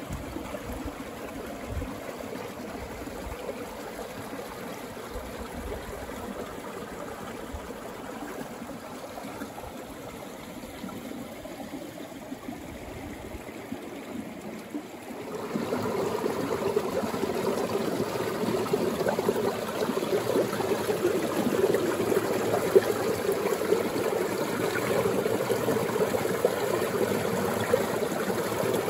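A small creek running: a steady rush of flowing water that suddenly gets louder about halfway through.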